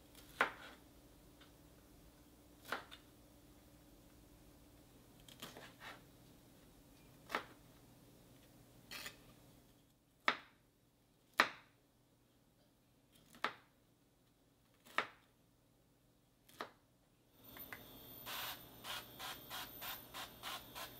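Serrated kitchen knife cutting broccoli florets on a wooden cutting board: about ten separate sharp cuts, one to two seconds apart. Near the end a faster run of light crackling ticks starts.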